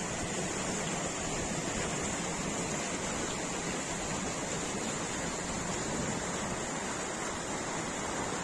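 Mountain stream rushing over boulders: a steady, unbroken rush of white water.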